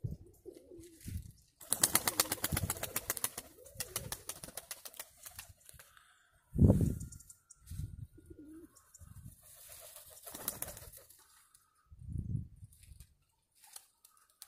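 Nikolaev pigeons cooing in short, low, repeated calls, with a quick run of wing beats about two seconds in.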